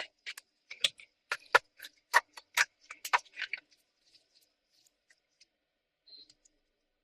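A quick run of about a dozen sharp clicks and snaps over the first three and a half seconds, then a few faint ticks. This is a laptop's plastic case being clipped and fastened shut during reassembly.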